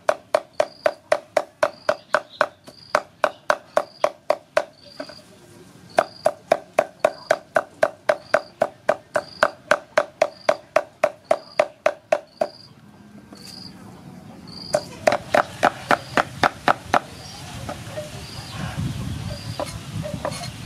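Cleaver chopping pork into mince on a wooden chopping block, about four strokes a second, in runs that pause about five and twelve seconds in and stop about seventeen seconds in. A short high chirp repeats about twice a second behind it.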